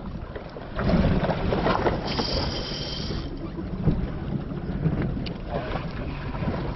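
Wind buffeting the microphone over the wash of water around a small boat at sea, with a brief hiss about two seconds in and a few small knocks.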